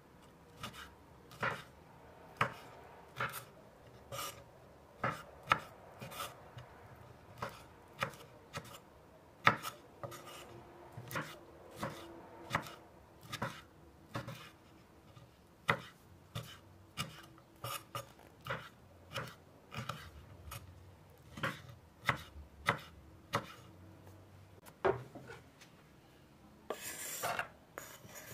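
Sharp, irregular knocks or taps, about one or two a second, with a short scraping rustle near the end.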